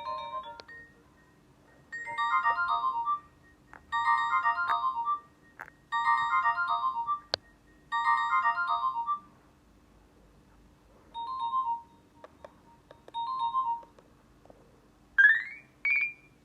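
Nokia 220 mobile phone ringtones: a short electronic melody phrase repeats four times about two seconds apart, followed by two softer, shorter note patterns. Near the end come two quick rising sweep tones, with faint clicks in between.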